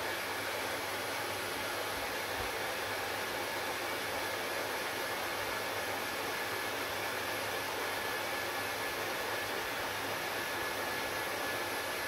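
Handheld hair dryer running steadily on wet hair: an even rush of air with a thin, steady whine on top.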